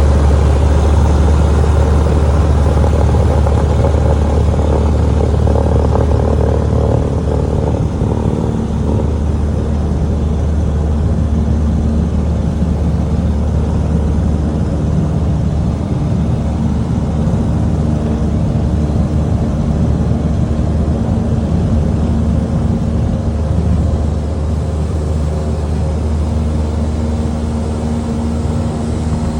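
Cessna 150's 150-horsepower engine running at full power for takeoff, a loud, steady drone. The sound changes about eight seconds in, with a steadier tone after.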